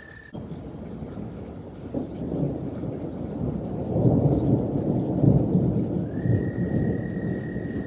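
Rolling thunder over steady rain: the rumble builds from about two seconds in, is loudest in the middle, then eases off.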